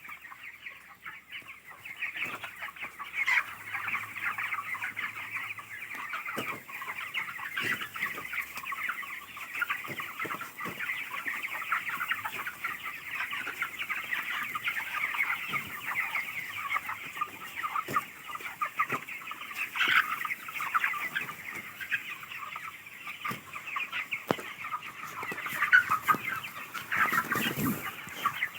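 A large flock of chickens in a poultry house clucking together in a dense, continuous chatter, with a few faint knocks.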